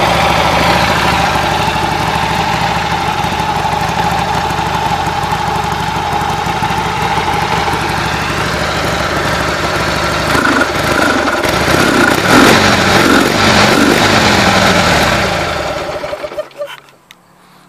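1980 Harley-Davidson XLH Ironhead Sportster V-twin running on its original mufflers, idling with the choke still partly on. About ten seconds in the throttle is blipped a few times, the pitch rising and falling, and the engine is then shut off near the end.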